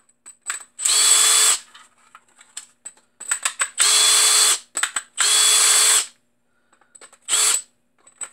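Cordless drill with a Torx 10 bit unscrewing the case screws of a battery pack. The motor runs in four short bursts, each under a second, with light clicks and knocks in between as the bit is set into the next screw.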